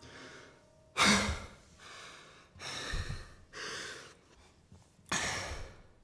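A mountain-bike racer breathing hard from exertion: five heavy, hissing exhales about a second apart, the loudest about a second in.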